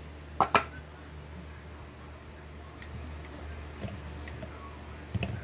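Clicks and knocks from handling an electric milk frother's plastic lid and jug: two sharp clicks about half a second in, a faint tick later, and a short clatter of knocks near the end, over a faint low hum.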